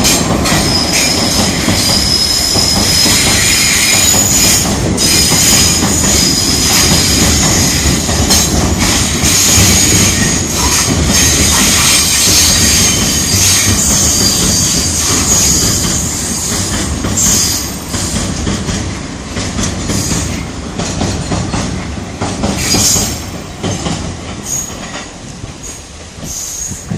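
Coal train's wagons rolling over a railway bridge overhead: a steady heavy rumble with high wheel squeal and clacks over the rail joints. The sound fades away over the last ten seconds or so as the end of the train passes.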